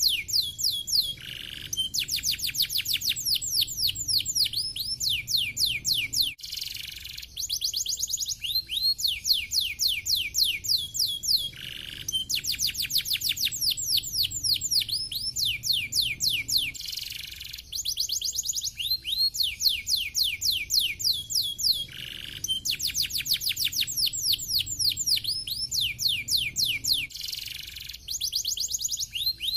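Domestic canary singing: fast trills of rapidly repeated, steeply falling high whistled notes, in long phrases of about four to five seconds with short breaks between.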